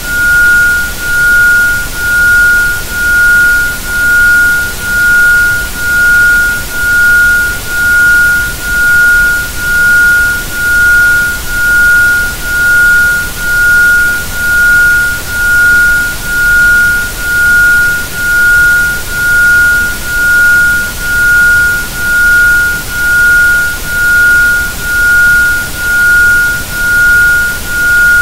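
Isochronic tone: a pure 1430.71 Hz sine tone pulsing on and off about once a second (1.05 Hz), over a constant hiss of background noise.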